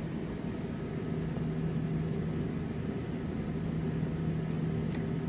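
Siemens CBC haematology analyser running with a steady low hum, which settles in about a second in, while its sample probe sits in an open blood tube to draw the sample. A light click near the end.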